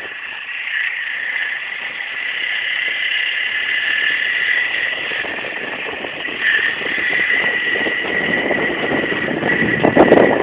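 Minsk motorcycle's small two-stroke engine running on the move, with wind on the microphone. The low rumble grows from about eight seconds in, and there is a sudden loud burst with a click just before the end.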